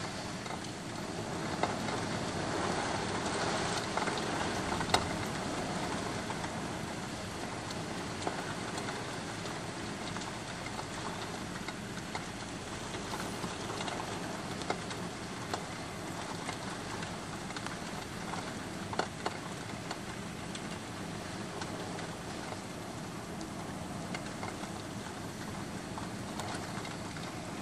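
Heavy rain falling steadily on a city street, an even hiss a little stronger in the first few seconds, with an occasional sharp tap close by.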